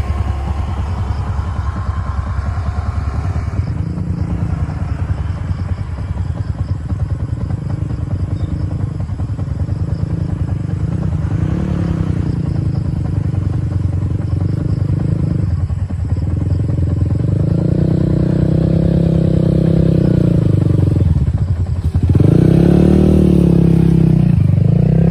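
Motor scooter engines running at low speed, one coming closer along the trail and growing louder toward the end, its pitch rising and falling with the throttle.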